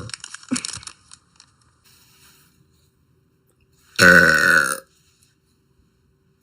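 A girl burping: one loud, pitched burp lasting under a second about four seconds in, after the end of an earlier burp right at the start.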